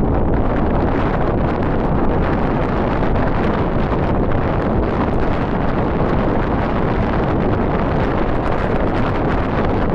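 Steady wind buffeting the microphone, a loud, even rumbling noise with no separate thunderclaps.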